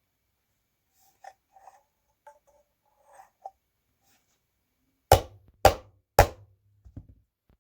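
Knocks and taps from handling the parts of a vacuum cleaner motor: scattered faint clicks, then three loud knocks about half a second apart and two lighter ones.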